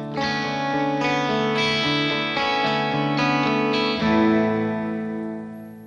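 Guitar music at the close of a radio commercial: a run of chords changing about every half second, then a last chord held and fading out.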